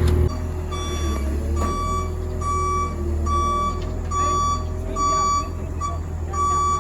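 Heavy-equipment travel/backup alarm beeping repeatedly, a little faster than once a second, over the low drone of a diesel engine running.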